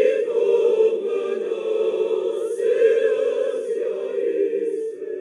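A choir singing long held chords in several voice parts. It grows slightly softer toward the end.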